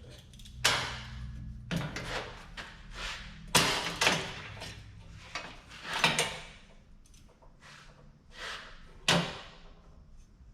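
Irregular sharp knocks and clanks of steel frame parts and clamps being handled and fitted, about a dozen strikes, each ringing briefly, the loudest about a third of the way in, just past halfway and near the end.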